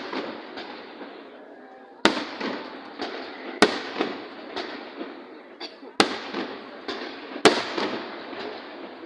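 Fireworks display: about four loud sharp bangs a second or two apart, with smaller pops and crackling between them, each bang trailing off in echo.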